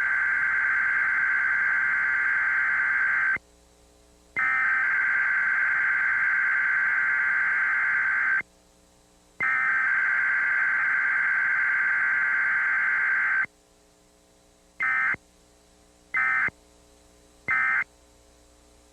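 Emergency Alert System digital header tones: three long bursts of warbling data, each about four seconds, with a second's pause between them. Three short bursts follow about a second apart, the pattern of the end-of-message code.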